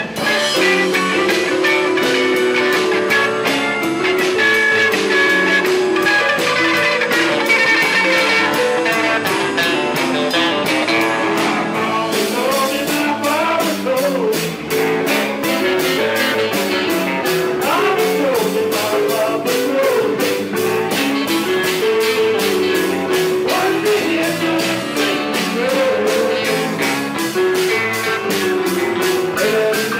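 Live blues-rock band playing: electric guitar over a drum kit, keeping a steady beat.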